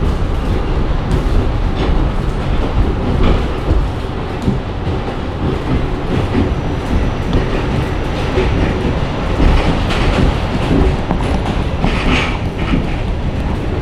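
NYC subway Q train running on the track: a steady, loud rolling noise with scattered clicks of the wheels over rail joints.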